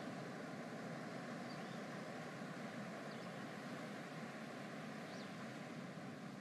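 Soft, steady ocean surf ambience, an even wash of waves, with a few faint high chirps every second or two.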